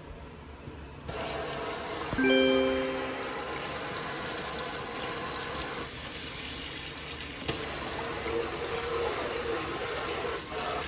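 Water running from a newly installed single-handle pull-down kitchen faucet, turned on suddenly about a second in and then flowing steadily. A click and a short ringing tone come about two seconds in.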